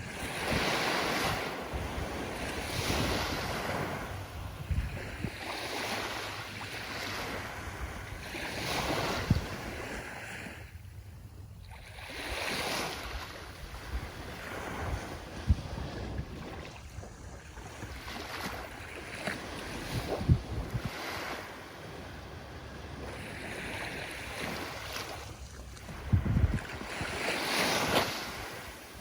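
Ocean waves breaking and washing ashore, the surf swelling and fading every few seconds, with brief low thumps of wind on the microphone.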